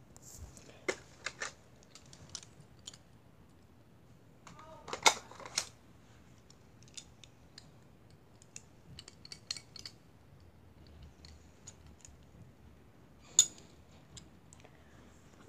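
Scattered light clicks and clacks of handling. Louder knocks come about a second in, around five seconds in, and near the end.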